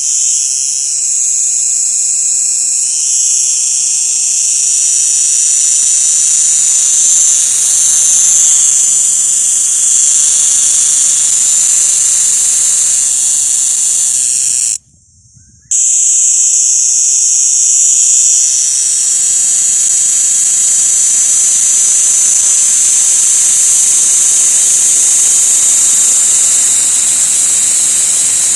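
An insect's loud, continuous high-pitched buzzing call, steady throughout, cutting out abruptly for about a second halfway through.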